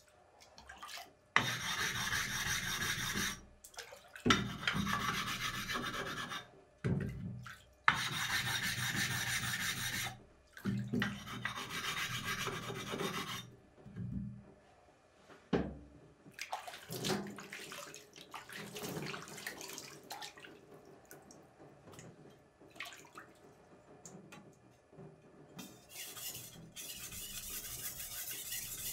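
Usuba knife blade being rubbed on a wet whetstone by hand during hand polishing: gritty rubbing strokes of about two seconds each, several starting with a sharp knock, then shorter, fainter strokes in the second half.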